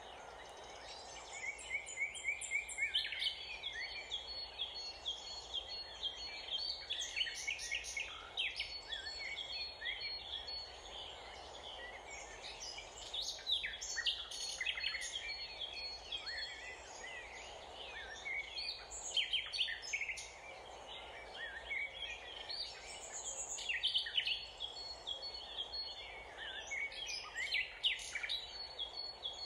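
Small songbirds chirping and calling: many short, sharp chirps and quick trills coming in busy clusters, over a steady faint background hum.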